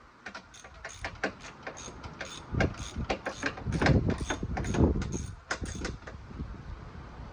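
Socket ratchet on an extension clicking in short, even strokes, about three to four clicks a second, as a bolt of the upper engine mount is loosened, with duller metal knocks in the middle.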